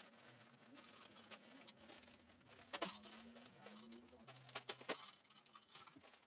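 Faint clinking and jangling of small metal cuckoo clock parts being handled out of their packing, with a few sharper clinks about three and five seconds in.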